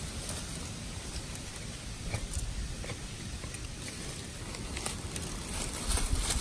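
Faint rustling and small crackles of dry leaf litter, with a low rumble of wind or handling on the microphone; the rustling grows louder near the end.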